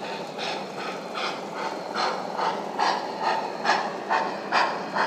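An O scale model steam locomotive's sound system chuffing in a slow, even beat, about two and a half chuffs a second, growing louder about two seconds in, over a steady hum of the running model.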